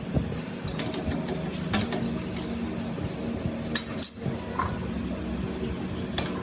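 Light metallic clinks and taps of steel parts or tools being handled, over a steady mechanical hum.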